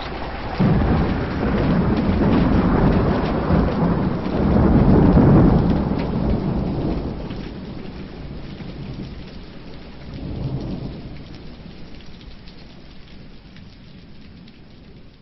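Thunder rolling over rain: a sudden clap about half a second in, then a long low rumble that swells and slowly dies away, and a second, softer rumble about ten seconds in, fading out.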